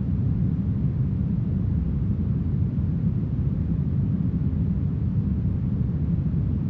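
Steady, smoothed brown noise: a deep, even rush weighted heavily to the bass and muffled at the top, with no change in level or character.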